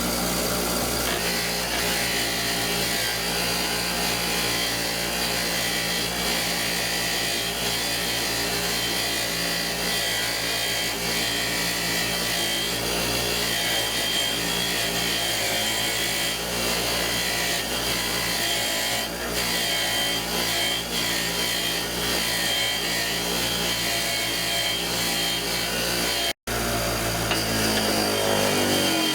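Powered wire wheel running steadily while a rusty steel breaker bar is pressed against it, a continuous scratchy brushing over the motor's whirr as rust and grime are scoured off. The motor winds down at the very end.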